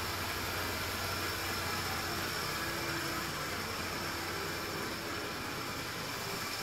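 Steady background hum and hiss with a few faint constant tones, unchanging throughout: room tone with no distinct event.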